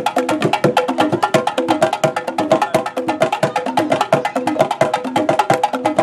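Instrumental music with no singing: a fast, even percussion beat over a short, repeating melodic figure.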